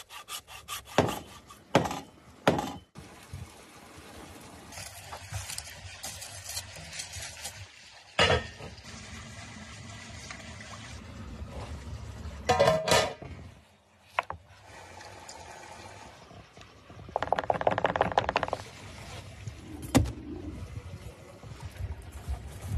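A run of outdoor cooking sounds: a hand saw rasping through a raw joint of meat and bone in the first few seconds, then knocks, clatter and handling noises, with a denser crackling stretch about three quarters of the way through.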